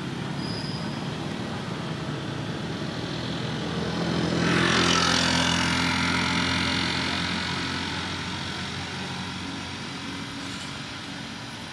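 A motor vehicle passes by on the road, its engine and tyre noise swelling to a peak about five seconds in and then fading away, over a steady engine hum.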